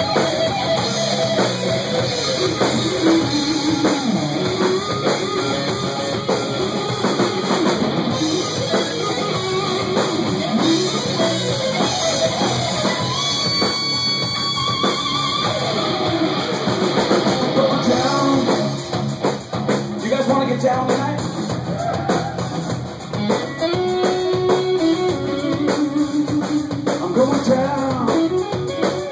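Live blues-rock band: an amplified electric guitar playing a lead solo with bending, gliding notes over a drum kit.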